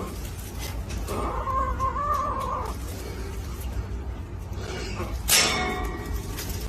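A domestic cat meowing once, a drawn-out call, then a short sharp crash or clatter a little after five seconds in.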